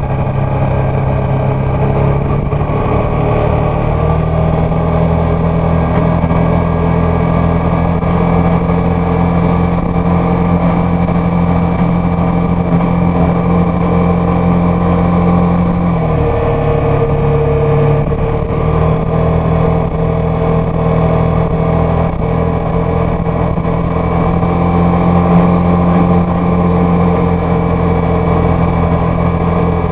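Yamaha X-Max 250 scooter's single-cylinder four-stroke engine running steadily at cruising speed on the open road. About halfway through, the engine note drops briefly, then rises back to its cruising pitch a couple of seconds later.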